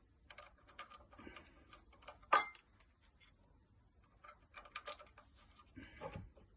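Allen keys and metal barrier fittings clicking and clinking as they are handled, with one sharp metallic clink about two seconds in that rings briefly.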